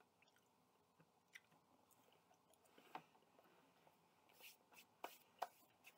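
Faint chewing of crisp food, with a few short, sharp crunches and clicks, the loudest about five seconds in.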